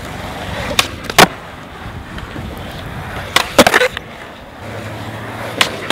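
Skateboard wheels rolling on smooth concrete, broken by the sharp clacks of the tail popping and the board landing on flatground tricks: a pair of clacks about a second in, a quick cluster around three and a half seconds, and another clack near the end.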